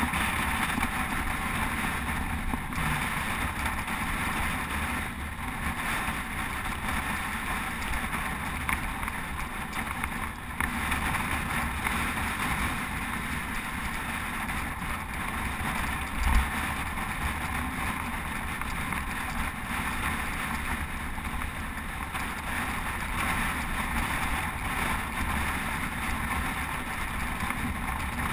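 Steady wind rush and road noise picked up by a GoPro riding on a moving road bicycle at speed in a group. A single thump about sixteen seconds in.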